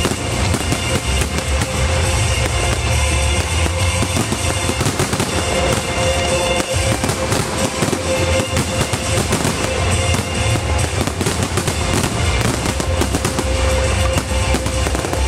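Fireworks display: aerial shells bursting and crackling overhead in quick succession, thickest in the middle, with loud music with a heavy bass beat playing throughout.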